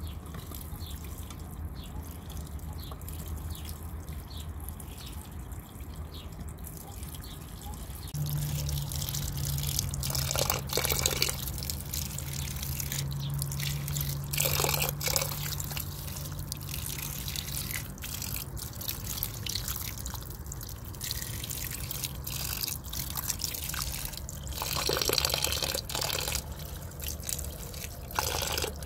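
Water running from the tap of a plastic barrel into a metal pot, then hands washing okra in a metal bowl of water: repeated splashing and dripping, loudest in three short bouts. A low steady hum runs for about ten seconds partway through.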